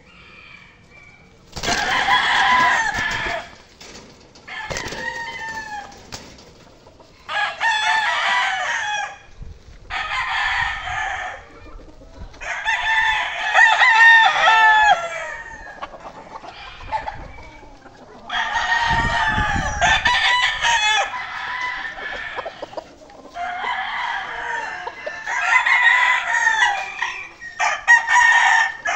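Several gamecocks crowing one after another, about nine long crows in turn, some overlapping as different birds answer each other.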